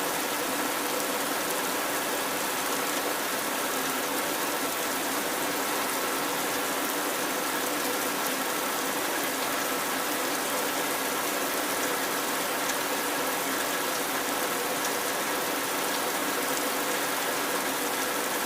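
Rain falling steadily on a metal roof: an even, unbroken hiss of many drops, with a few faint steady ringing tones in it.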